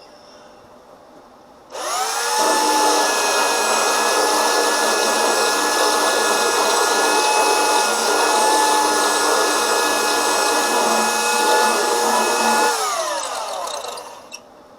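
Power sander switched on about two seconds in, its whine rising as it spins up. It runs steadily for about ten seconds, sanding the paint off damaged body panel spots, then is switched off and winds down.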